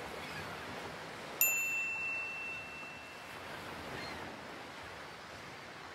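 A single bright chime strikes about a second and a half in and rings out for about two seconds, over a steady hiss of ocean surf.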